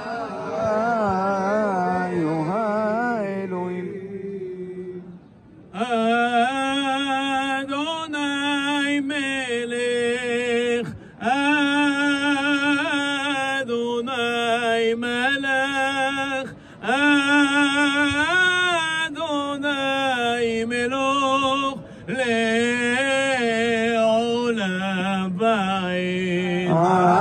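A male cantor chants a Mizrahi-style liturgical melody, each long phrase full of rapid trills and melismatic runs, with a short breath between phrases about every five seconds.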